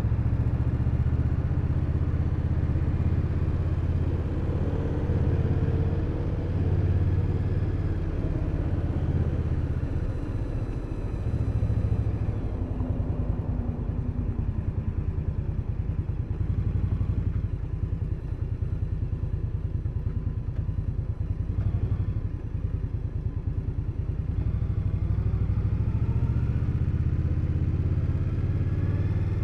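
Indian Scout Bobber's V-twin engine running, heard from the bike itself; its low rumble swells and eases with the throttle.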